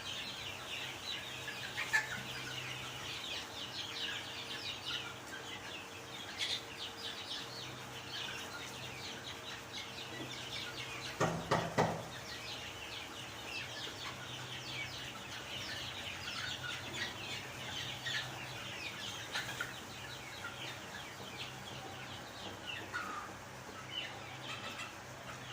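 A flock of chicks peeping and chirping without pause while they feed on scattered rice, over a steady low hum. A brief louder burst of sound comes about eleven seconds in.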